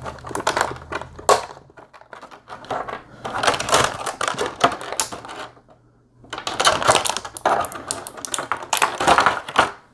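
Rigid clear plastic clamshell packaging crackling and clicking as it is handled and pried open, in three bursts with short lulls near two and six seconds.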